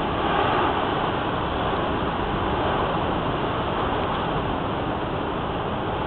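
Storm-force wind rushing through garden shrubs and trees and buffeting the microphone, a steady noise with a slightly stronger gust about half a second in.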